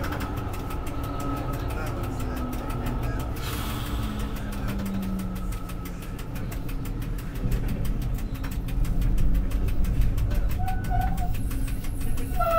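Tram running on its rails, heard from the driver's cab: a motor whine falls in pitch as it slows, with a short hiss a few seconds in. From about halfway the rumble of the wheels on the track grows louder, with short high squeals near the end as it takes the curving tracks.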